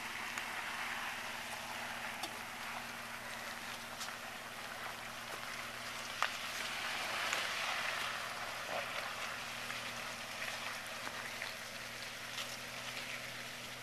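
Jeep Wrangler crawling slowly over loose gravel and sand: a faint, steady low engine hum under a continuous crackle of tyres on gravel, with a few sharp clicks of stones.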